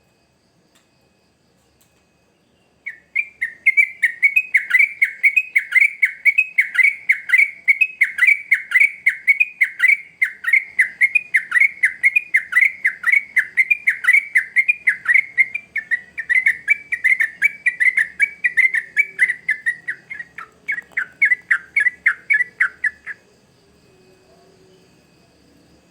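Yellow-vented bulbul (trucukan) singing a long, rapid string of short downward-sweeping notes, about four a second, starting about three seconds in and stopping a few seconds before the end.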